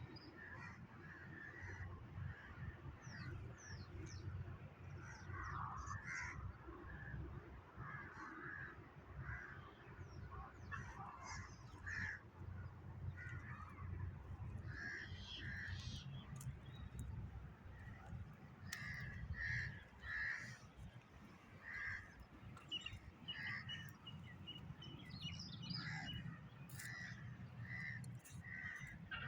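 Birds calling repeatedly in short calls, some of them higher chirps, over a steady low rumble.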